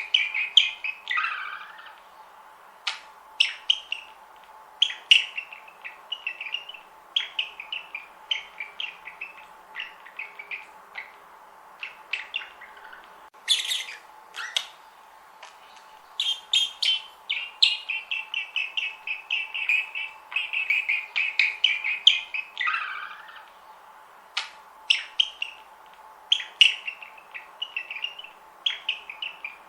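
Budgerigars chirping and warbling in rapid runs of short notes, mixed with sharp, clicking calls, with a lower call sliding down in pitch about a second and a half in and again later.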